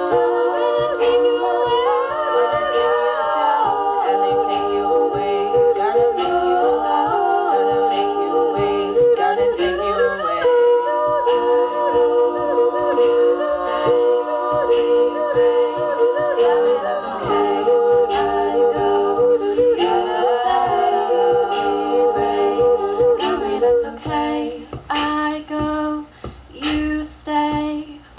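Women's a cappella group singing wordless held chords in close harmony, with no instruments. About 24 seconds in, the texture thins to a short low note sung over and over in a choppy rhythm.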